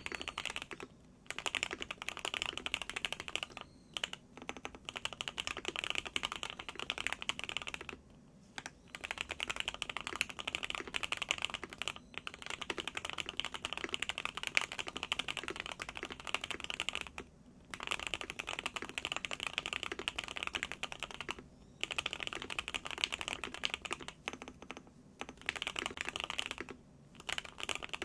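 Qwertykeys QK65 mechanical keyboard with hand-lubed Gateron Oil King linear switches on a POM plate, typed on fast. The typing comes in continuous runs of a few seconds, with brief pauses about a second in, near 4 and 8 seconds, and several times later on.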